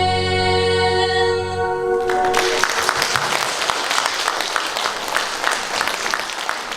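A song ends on a long held final note over its backing music, cutting off about two seconds in, then an audience applauds.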